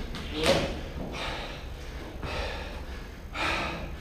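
Heavy, hard breathing from an athlete partway through a timed workout, with loud rushing gasps and exhales about once a second.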